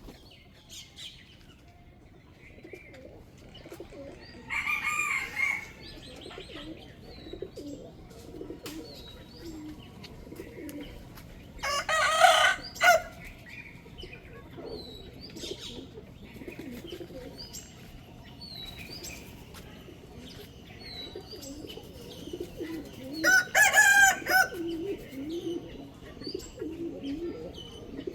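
Rooster crowing three times, spaced several seconds apart, each crow a loud call of a second or so. Softer low warbling calls and short high chirps from other birds carry on in between.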